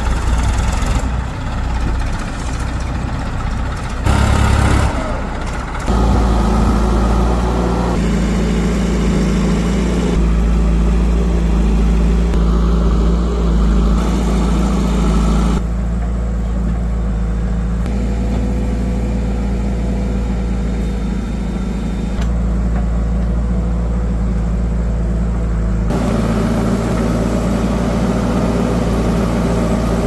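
Heavy diesel machinery engines running steadily with a deep hum. The sound shifts abruptly several times, at about 4, 6, 16, 22 and 26 seconds.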